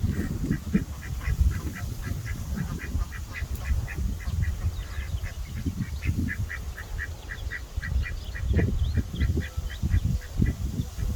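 Two ducks calling in quick runs of short, soft quacks, about three or four a second, with a brief pause midway, over a loud low rumble.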